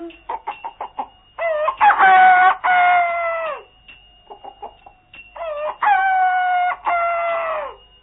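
Rooster crowing twice, each a long cock-a-doodle-doo of about two seconds that drops in pitch at its end, with short clucks before and between the crows.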